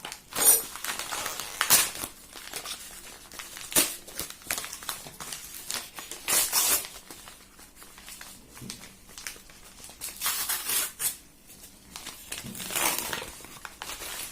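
Packaging being handled and opened by hand: irregular crinkling and rustling with several louder tearing bursts as an envelope is torn open.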